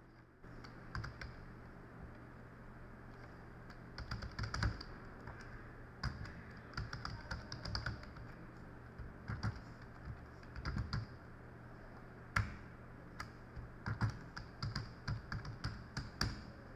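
Typing on a computer keyboard: irregular runs of keystrokes with short pauses between them, over a faint steady low hum.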